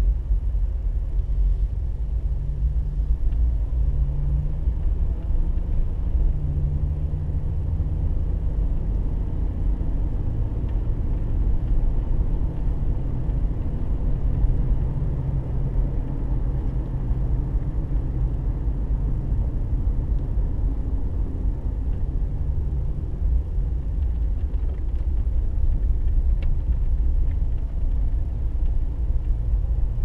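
A car driving slowly on a paved road: a steady low rumble of engine and tyre noise, with the engine note wavering slightly.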